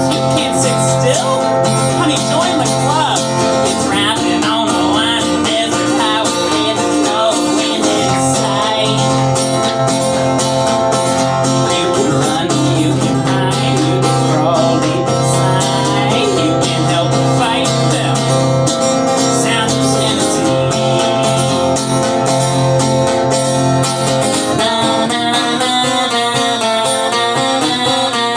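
Live performance of an original song, with an instrumental accompaniment of sustained chords. Near the end the playing changes to a quicker, choppier rhythm.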